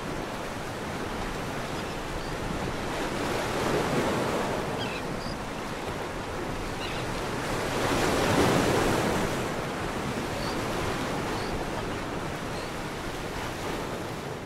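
Ocean surf washing onto the beach, a steady rushing that swells about four seconds in and again near eight seconds, with wind rumbling on the microphone.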